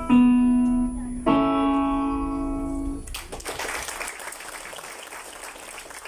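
Digital piano sounding the final held chords of a piece, a second chord struck about a second in and ringing until about three seconds in. Then audience applause starts and carries on, quieter than the piano.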